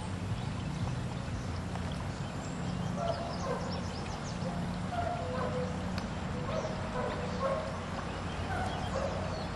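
Steady rush of floodwater, with scattered short bird calls from about three seconds in.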